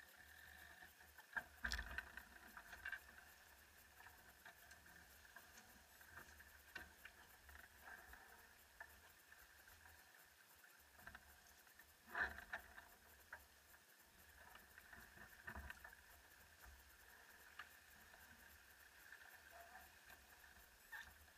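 Near silence aboard a sailing yacht: a faint steady hiss with scattered light knocks and clicks from the deck, the loudest about two seconds in and again about twelve seconds in.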